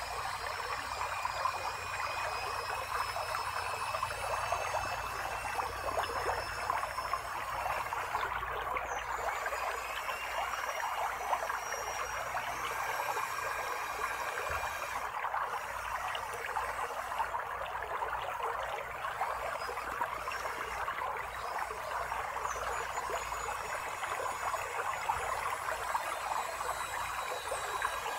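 Creek water trickling and babbling steadily, with faint thin high tones above it.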